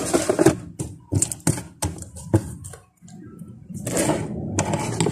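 Hands working slime and clay: a run of sharp clicks and small cracks, several a second, then a brief lull and a denser rustling stretch about four seconds in.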